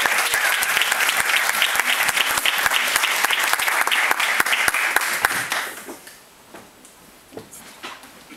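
Audience applauding, a dense clatter of many hands clapping that dies away about five and a half seconds in, leaving a few scattered claps.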